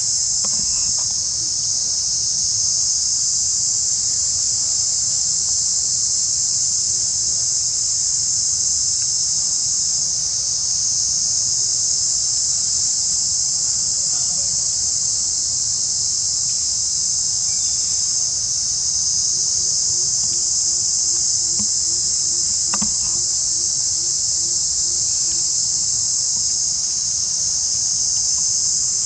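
A steady, high-pitched chorus of insects droning without a break, with one sharp click about three-quarters of the way through.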